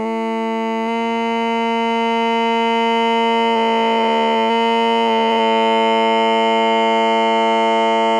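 Music: a held electronic chord that slowly grows louder, with a brief wavering of the notes partway through.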